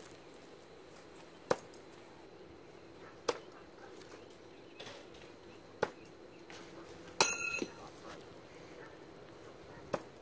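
Throwing knives hitting a wooden target board with short, sharp thunks, four spaced apart. About seven seconds in there is one louder metallic clang that rings briefly.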